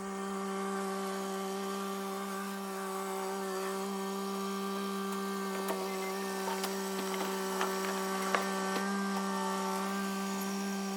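Tractor engine running at a steady speed, a constant even drone, with scattered sharp wooden cracks and creaks over it as the blind's framing is shoved and shifted.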